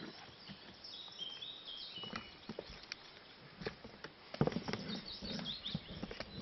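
Smooth fox terrier puppies scampering on grass, light pattering and scuffing steps with a few louder knocks about halfway through. A small bird chirps in the background, about a second in and again near the end.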